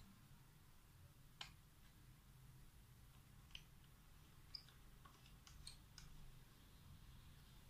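Faint, scattered clicks of hands working the metal end cap of a small water-purifier pump motor under repair, over a low room hum.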